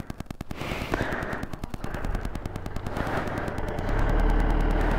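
A scooter's small engine running with a rapid, even putter of firing pulses. About four seconds in, a low rumble builds and the sound gets louder as the scooter rides off.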